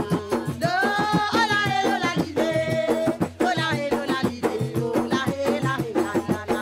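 Mauritian séga ravanne music: a voice singing a melody over ravanne frame drums and shaken percussion keeping a fast, even beat.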